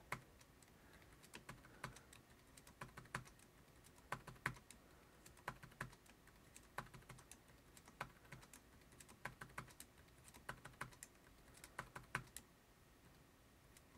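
Computer keyboard keys clicking faintly in short clusters about once a second: a copy-paste shortcut pressed over and over.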